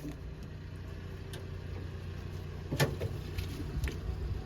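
A few light clicks and knocks of hands working on the cut-off metal fuel pipe, the loudest about three seconds in, over a steady low hum.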